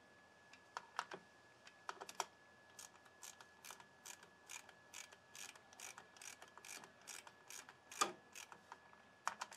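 Hand socket ratchet clicking in short runs of light ticks, about two or three a second, as the clutch spring bolts are run down; a single sharper click about eight seconds in.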